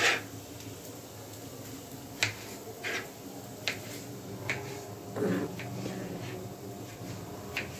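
Knife chopping tomatoes on a plastic cutting board: scattered sharp taps at an irregular pace, about one a second.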